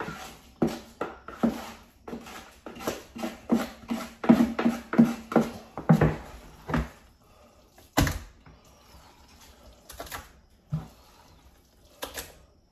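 Spoon scooping and packing soft homemade dog food into a bowl: a quick run of scraping, knocking strokes, about three or four a second, then a few separate sharper knocks in the second half, the loudest about eight seconds in.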